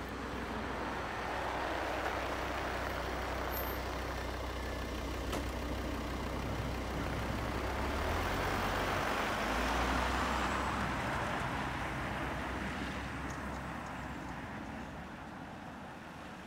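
Cars pulling away across a level crossing on a snow-covered road, engine and tyre noise swelling twice as they drive off, then fading near the end.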